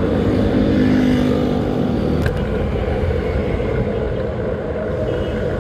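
Steady low rumble of wind and road noise from riding along a street. A passing motorcycle's engine drones for the first two seconds or so, then fades.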